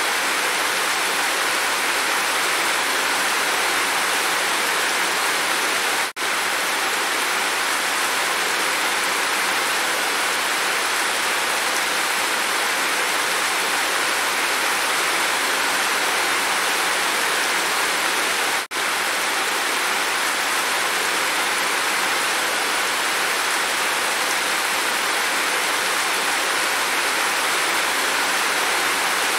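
Steady rainstorm, heavy rain pouring and streaming off a roof edge. The sound drops out for an instant twice.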